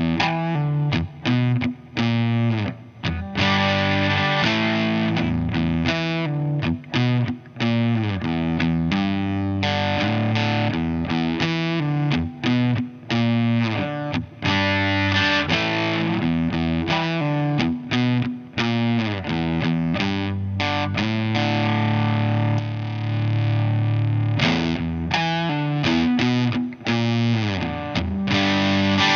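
Electric guitar played through a compressor-into-overdrive pedal, giving an overdriven tone. It plays chords and riffs in phrases separated by brief pauses, with a long-held chord a little past the middle.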